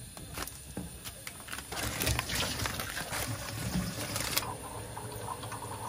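Water boiling in a shallow pan of seafood, with a few light clicks of metal tongs in the first second or so. Then comes a couple of seconds of hissing, rustling noise that cuts off suddenly, as blocks of instant ramen noodles go into the pan.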